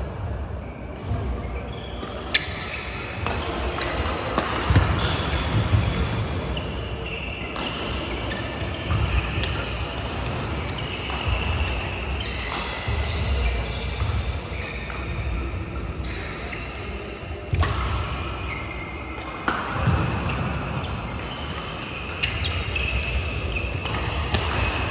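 Badminton hall in play: scattered sharp racket strikes on shuttlecocks, short squeaks and thuds of shoes on the court mats, echoing in the large hall.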